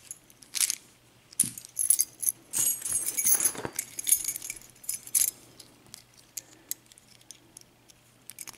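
Keys jangling and small brass lock cylinders clicking against each other as they are handled. The metal clinks come densest and loudest in the first half, then thin out to a few light clicks.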